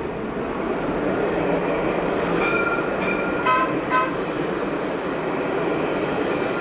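A light-rail tram running past close by with a steady rumble. Two short horn toots sound about halfway through.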